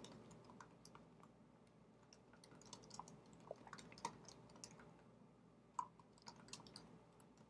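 Faint typing on a computer keyboard: scattered soft key clicks that start a couple of seconds in, with short pauses between bursts.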